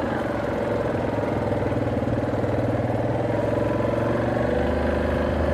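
ATV engine running steadily while the machine is ridden, its low tone dropping a little about four and a half seconds in.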